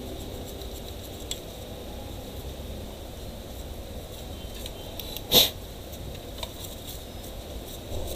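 Faint scuffs of tissue wiping hardened old thermal paste off a laptop processor, over a steady low hum. About five seconds in, one short loud sniff.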